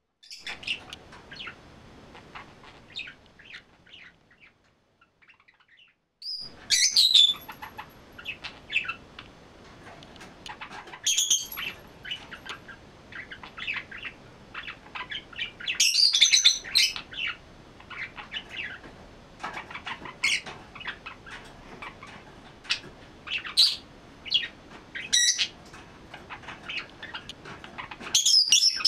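Pet budgerigar warbling its song: a long, rambling run of soft chatter and chirps, broken by louder, sharp calls now and then. It falls silent for about two seconds a few seconds in.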